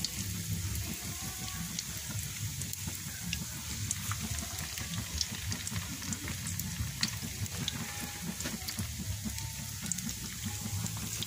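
Banana lumpia deep-frying in a wok of hot oil: a steady sizzle with scattered small crackles and pops over a low rumble.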